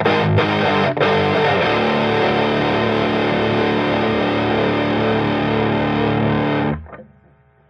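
Electric guitar played through the EGO TM2 OD100 on its lead sound: a few quick picked chords, then one chord held and left to ring for about five seconds before it is muted near the end.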